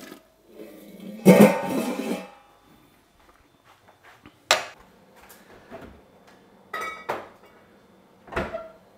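Sparse plucked-guitar music: a loud strummed chord about a second in, then a few single plucked notes, each dying away quickly.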